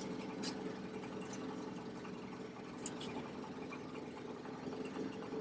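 Steady idling hum of an engine, with a few light clicks and taps.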